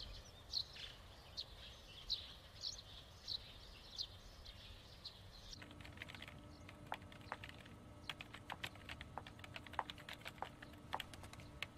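Small birds chirping faintly in short, evenly spaced calls. About five seconds in these give way to quick, irregular typing on a computer keyboard over a faint steady hum.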